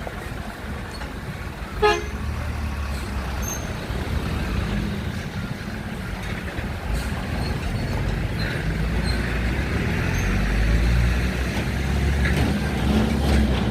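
Road traffic with a short vehicle horn toot about two seconds in, then a heavy vehicle's engine running and growing louder as it comes close.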